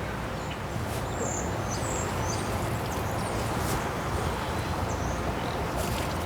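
Outdoor ambience: a steady rushing hiss with a low rumble underneath, and a few short, high bird chirps in the first half and again near the end.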